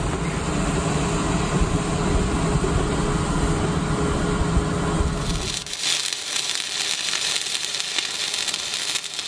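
Stick welding with a 3.2 mm electrode on the steel hull. A low, dense rumbling noise gives way, about five and a half seconds in, to the steady crackle of the welding arc.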